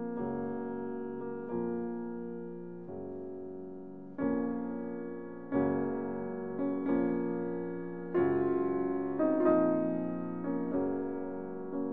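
Background music of slow piano chords, a new chord struck about every second and a half and left to ring and fade.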